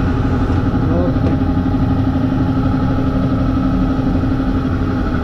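Compressed-air paint-drying blower running steadily as it dries a freshly sprayed test card. A steady hum in the air noise cuts off near the end.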